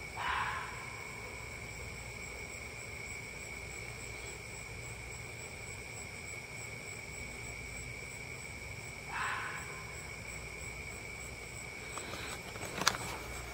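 A fox barking twice, about nine seconds apart, over a steady chorus of night insects. A sharp knock near the end.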